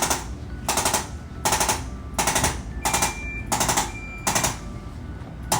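Handheld electric chiropractic adjusting instrument rattling in short bursts of rapid taps, about one burst every ¾ second, seven in a row, then a pause of about a second near the end.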